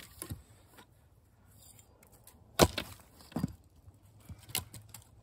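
Splitting axe and freshly cut American persimmon wood knocking: a sharp hit about two and a half seconds in, a second knock just under a second later, and a light click near the end.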